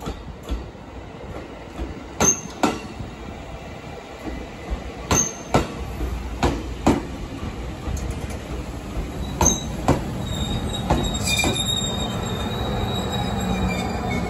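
Slow-moving train wheels clacking over a rail joint in pairs of sharp clicks every one to three seconds, over a low rumble that grows louder. Thin, high wheel squeal comes in near the end.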